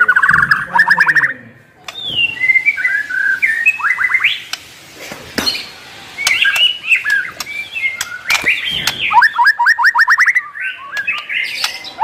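White-rumped shama (murai batu) singing a varied, mimicry-filled song of loud whistled phrases and sharp clicks. A fast run of rapidly repeated rising notes comes at the start and again about nine seconds in.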